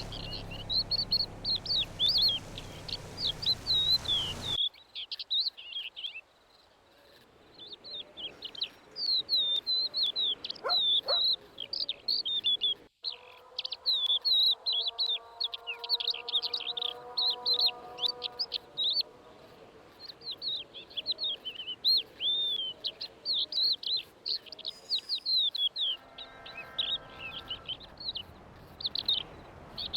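Small songbirds chirping steadily in quick, high, overlapping calls. A low rumbling background cuts off abruptly about four seconds in.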